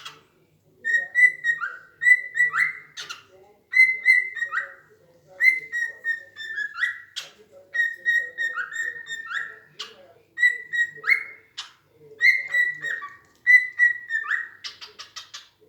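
A small bird whistling the same short phrase over and over, every second or two. Each phrase is a few clear notes stepping down, and a quick run of about six sharp chirps follows near the end.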